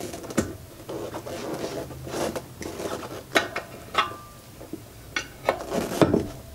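Tire irons clinking and scraping against a spoked motorcycle wheel's metal rim as the tire bead is levered back on, a handful of sharp metallic knocks with rubbing between them; one knock rings briefly about four seconds in.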